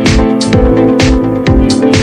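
Electronic dance music with a steady beat: a regular kick drum and sharp high percussion hits about twice a second over held synth notes.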